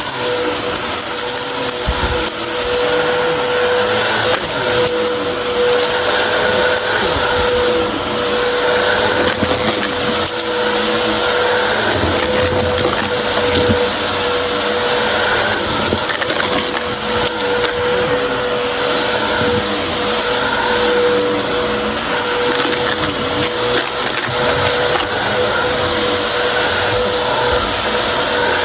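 Vacuum cleaner running steadily with a constant motor whine and airflow hiss.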